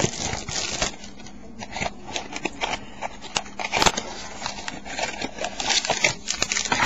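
Hands working a foil trading-card pack: crinkling, scraping and rubbing of the wrapper, with many small sharp clicks.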